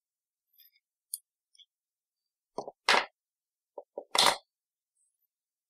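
Pliers and coil wire being handled: a few faint small clicks, then two louder short knocks about three and four and a quarter seconds in.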